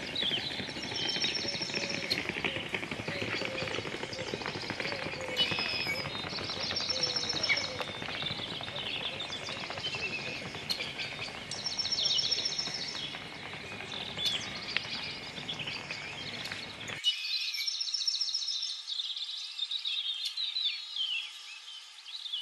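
Small birds chirping and singing, with short high trills repeated every few seconds, over steady outdoor background noise. About seventeen seconds in, the low rumble drops away and the birdsong carries on.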